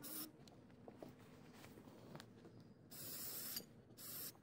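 Aerosol can spraying white paint in short hissing bursts: one brief burst at the start, then, after a pause of about two and a half seconds, two more bursts near the end.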